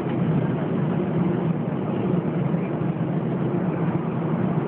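Steady cabin noise inside an Airbus A320 taxiing to the runway, with the jet engines at low taxi power. It is a constant low hum that neither rises nor falls.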